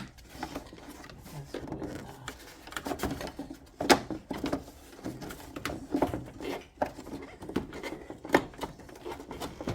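Irregular clicks and knocks of hand tools and parts being handled during car repair work, with a sharp knock about four seconds in and another about eight and a half seconds in.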